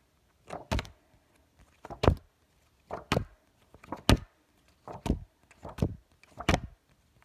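A series of about eight short knocks on a wooden surface, roughly one a second.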